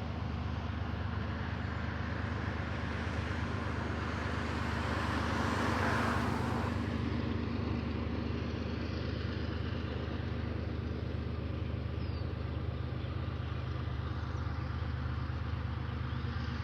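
Diesel freight locomotives idling with a steady low rumble, not yet revving. About a third of the way in, a rushing noise swells up and dies away again.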